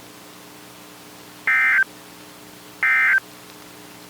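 Emergency Alert System end-of-message signal: short, identical blips of SAME digital data tone, about 1.3 seconds apart, marking the end of the broadcast warning. Two sound in full and a third starts at the very end, over a faint steady hum.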